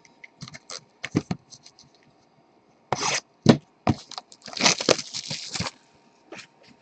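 Trading card pack wrappers being torn open and crinkled: a series of short crackles, then a longer tearing rustle about four and a half seconds in.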